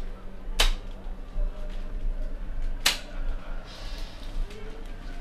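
Two short, sharp swishes about two seconds apart, over a steady low hum.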